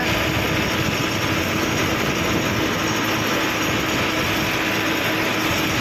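Tractor engine running steadily while the tractor drives along a road: a constant, even drone with a faint steady hum in it.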